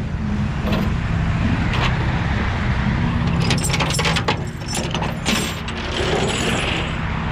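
Diesel truck engine idling steadily, with a metal tow chain clinking and rattling for a couple of seconds in the middle as it is handled.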